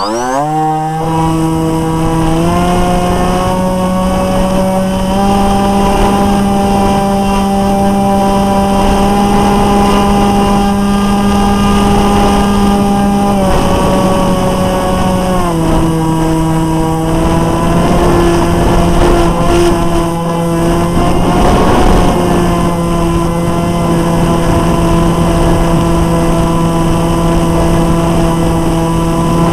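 Brushless electric motor and propeller of an RC flying wing, heard from a camera on board. The motor finishes spinning up at the start, then runs as a steady whine that steps up in pitch twice and later steps back down twice as the throttle changes, over rushing air noise.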